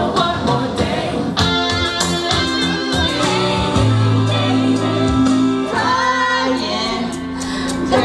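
Young women singing karaoke into microphones over a backing track, with long held notes; the song changes abruptly a couple of times.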